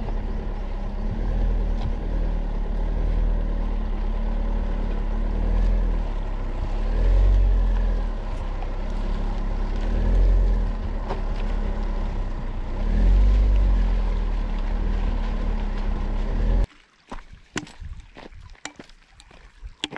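Car engine and wind rumble picked up by a hood-mounted action camera while driving up a rough gravel mountain track, swelling louder every few seconds. Near the end it cuts off suddenly, leaving quieter scattered crunches of footsteps on the stony track.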